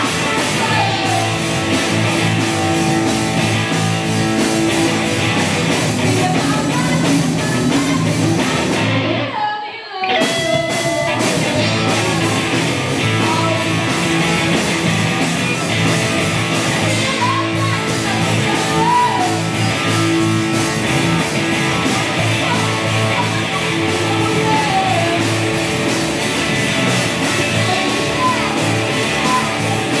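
Live rock band playing: distorted electric guitars, bass and drum kit, with a woman singing into a microphone. The band stops for about a second around ten seconds in, then crashes back in.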